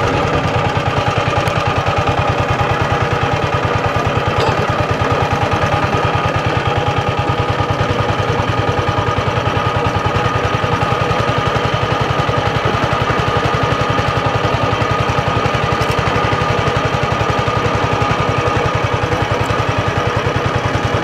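Small boat's engine running steadily at constant speed, a fast, even chugging beat with a steady whine over it.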